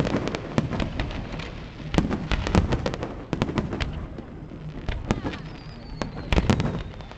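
Aerial display fireworks bursting in a rapid, irregular run of bangs and crackles, heaviest about two to three seconds in and again near the end. A thin whistle falls slowly in pitch over the last second and a half.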